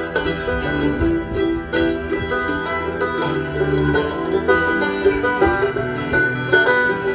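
Acoustic bluegrass band playing live: banjo, fiddle, mandolin, acoustic guitar and upright bass together.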